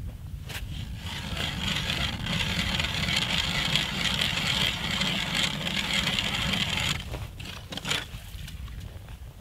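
Hand ice auger boring a hole through lake ice: a steady grinding scrape that starts about a second in and stops about seven seconds in, followed by a few short knocks.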